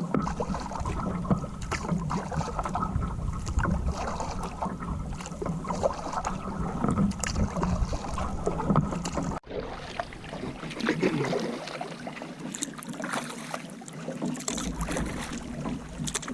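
Canoe paddling: the paddle dipping and pulling through lake water in irregular splashes and trickles, with wind buffeting the microphone. The sound drops out for an instant about nine seconds in, after which the wind rumble is lighter.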